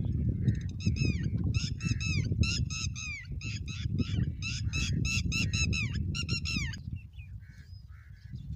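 Birds calling in a loud, rapid run of repeated falling notes, several a second, that breaks off about seven seconds in. A low rumble of wind on the microphone runs underneath.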